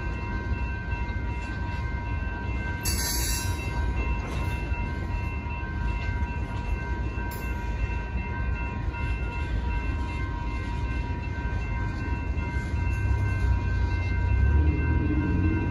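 A freight train of tank cars rolling through a grade crossing, a steady low rumble of wheels on rail that grows louder near the end. Over it, the crossing bells ring steadily. A brief high hiss comes about three seconds in.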